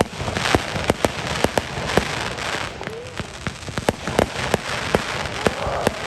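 Fireworks going off: a rapid run of sharp bangs, many a second, over a steady crackling.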